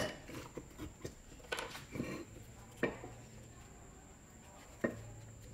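Metal parts of an old Shinko electric drill's motor knocking and clicking as it is taken apart by hand: a handful of sharp taps, the loudest about three and five seconds in.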